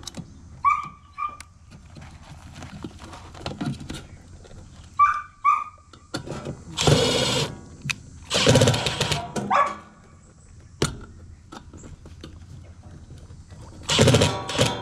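Dogs barking in several loud bouts, with short higher-pitched yelps in between.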